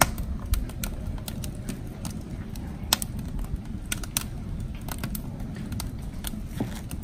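Knife cutting through a bunch of enoki mushrooms: irregular sharp taps of the blade, about two or three a second, over a steady low rumble.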